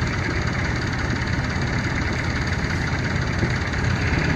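Compact tractor's engine running steadily as it works the front-end loader and backs away, a little louder near the end.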